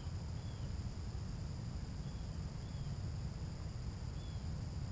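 Lakeshore ambience: crickets or other insects drone steadily at two high pitches, a bird gives about five short chirps, and a steady low rumble underlies it all.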